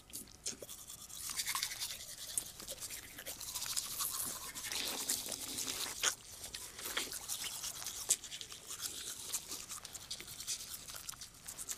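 Manual toothbrushes scrubbing teeth: a rapid, scratchy back-and-forth of bristles that keeps on without a break.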